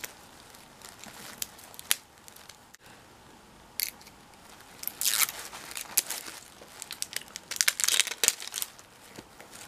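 Thin packaging wrapper crinkling and tearing as fingers pick it off a small makeup stick, in scattered crackles and short bursts, busiest about five seconds in and again near eight seconds.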